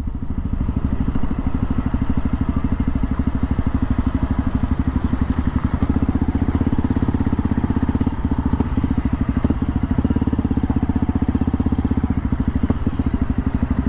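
Dirt bike engine running at low revs with an even, rapid pulsing exhaust beat, the bike crawling in slow traffic.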